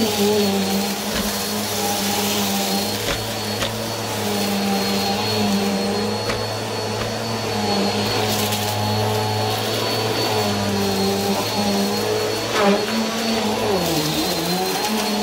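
Upright vacuum cleaner running steadily as it is pushed over carpet, its motor humming under a thin high whine, with a few faint ticks. Near the end the motor's pitch dips briefly and recovers.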